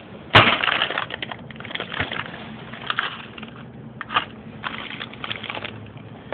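Rummaging through garage storage for hardware: a sharp knock about a third of a second in, then scattered clicks, rattles and knocks of things being moved and handled.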